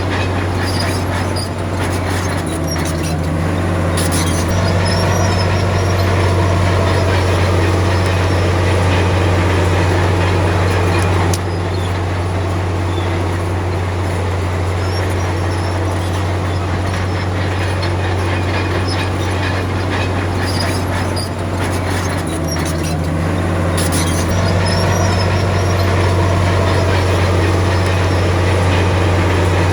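Komatsu D53P bulldozer's diesel engine running steadily under working load, its note shifting as the load changes, with the steel tracks clanking and squeaking.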